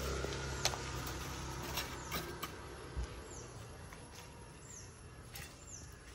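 A low engine-like rumble that starts suddenly and fades away over the first few seconds, with a few sharp clicks. A bird then gives short falling whistled calls, about one a second.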